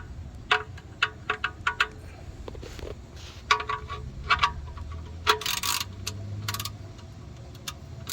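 Irregular sharp metallic clicks and clinks of a wrench and the oil drain plug as the plug is put back into the oil pan and tightened, a few clicks a second, with a brief scraping rattle about five and a half seconds in.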